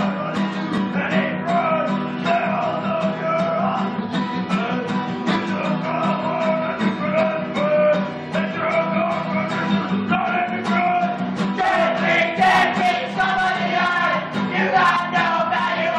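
A song: a voice singing a melody over steady instrumental accompaniment.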